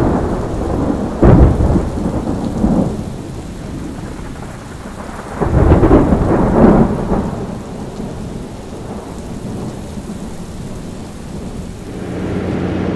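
Thunderstorm: heavy thunder rolling in several loud rumbles, the biggest about a second in and around six seconds in, over steady rain. Near the end a steady truck engine drone takes over.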